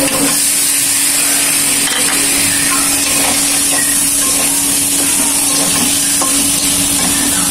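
Katla fish pieces sizzling as they fry in hot oil and spice paste in a metal karahi, with a steel spatula scraping and stirring against the pan. A steady low hum runs underneath.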